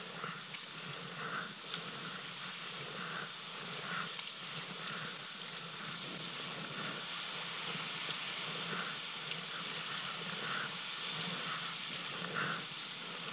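Water splashing and trickling from a wooden kayak paddle's strokes beside the kayak, a soft swish about every second or two, over a steady hiss of moving sea water.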